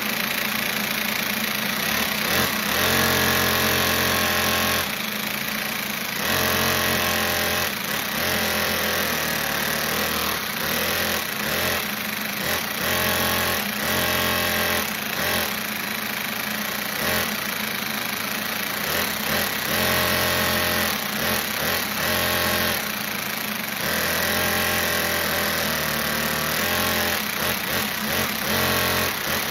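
An engine running with a steady hum underneath, its note switching abruptly between a quieter idle and a louder, higher-pitched run every second or two, as though the throttle is repeatedly opened and closed.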